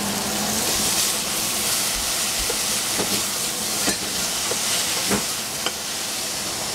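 Cauliflower florets sizzling as they fry in a stainless steel saucepan, with a wooden spatula stirring them and knocking against the pan in a few short, irregular clicks.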